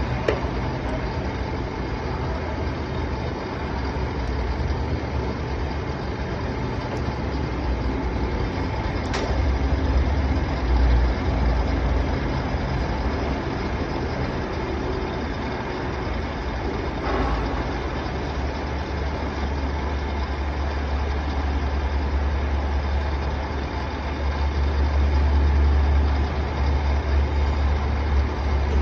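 Shizuoka VHR-A vertical milling machine running on test, a steady machine hum with a low rumble that swells a little in places, and a single click about nine seconds in.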